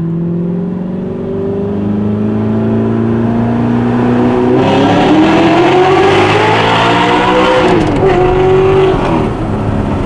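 Audi R8's 4.2-litre V8 through an Armytrix valved exhaust, accelerating hard, heard from inside the cabin. The revs climb steadily, then about four and a half seconds in the exhaust turns sharply louder and the revs rise quickly for about three seconds before falling back abruptly and settling.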